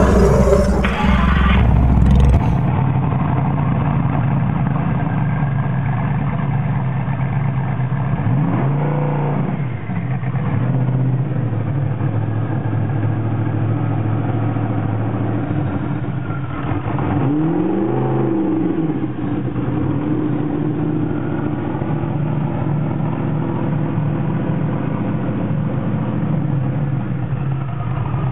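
Twin-turbocharged Audi R8 4.2 V8 running at idle, revved briefly twice: a short blip about a third of the way in and a longer rise and fall about two-thirds in. The first two seconds hold the louder tail of a roaring sound effect.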